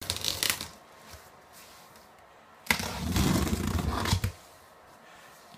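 Cardboard shipping box and its packing being handled and opened: a short scrape at the start, then a sudden stretch of about a second and a half of scraping and rustling.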